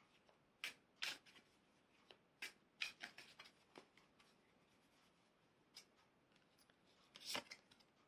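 Tarot cards being handled as cards are drawn from the deck: a few faint, scattered clicks and rustles at irregular moments, the clearest near the end, over near silence.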